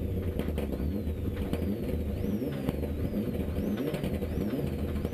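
Mitsubishi Lancer Evo 9's turbocharged four-cylinder engine, heard from inside the rally car's cabin, revved in repeated throttle blips with the car held on the spot. Its pitch jumps up and sinks back about every 0.7 seconds.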